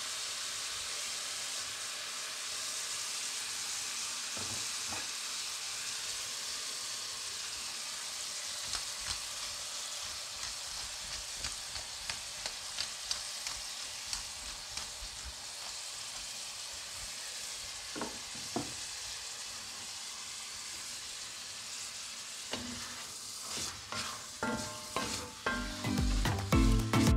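Cubes of beef sizzling steadily as they sear in butter in an enamelled cast-iron casserole, with scattered light clicks as the pieces are stirred. Rhythmic background music comes in near the end and becomes the loudest sound.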